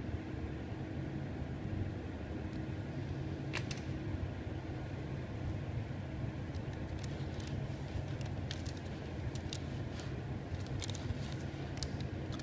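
Thin plastic film crackling and ticking in short sharp snaps as a sheet of PDLC smart film is handled and its protective liner worked loose, sparse at first and frequent in the second half, over a steady low machine hum.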